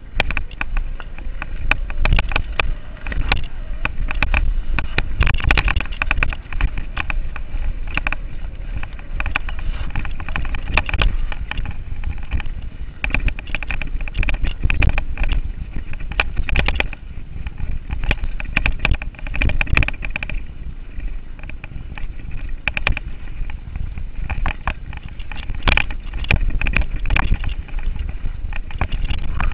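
Giant Reign full-suspension mountain bike descending a bumpy dirt singletrack at speed: steady rumble of the tyres over the trail, with constant irregular rattles and knocks from the bike over the bumps. Wind buffets the microphone.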